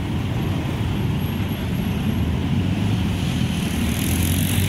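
Steady low rumble of road traffic, with a vehicle engine growing louder about four seconds in.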